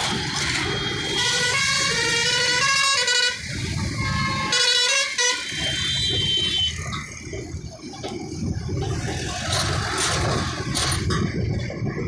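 Vehicle horns honking in road traffic: a long stretch of horn blasts from about one to three seconds in, then shorter ones around five and six seconds. Under them runs a steady rumble of engines and tyres.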